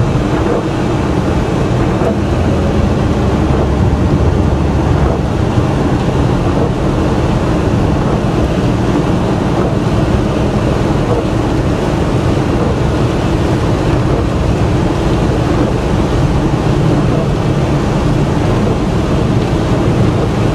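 Steady engine and tyre noise heard inside a car driving on a rain-wet road, with a low rumble and a faint steady hum.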